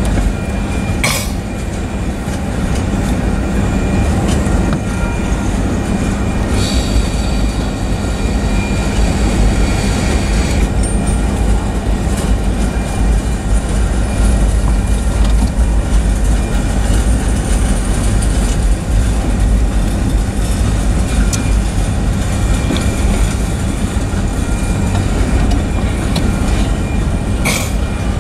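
Freight cars of a manifest train rolling steadily past a grade crossing: a continuous heavy rumble of wheels on rail, with sharp clanks about a second in and again near the end.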